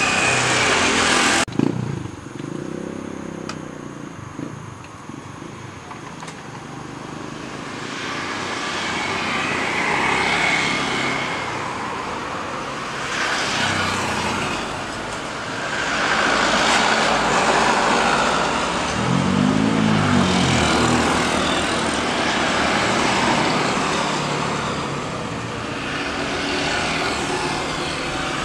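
Jet airliner engines running across an airfield: a broad steady roar that swells and fades in long waves. A louder passage at the very start is cut off abruptly.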